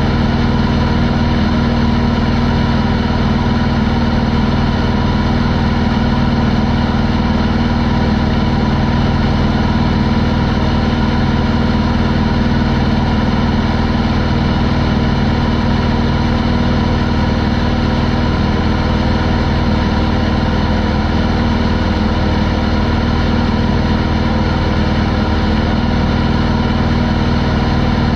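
Corvair air-cooled flat-six engine and propeller of a Pietenpol Air Camper running steadily in level flight, an even drone with no change in pitch or power.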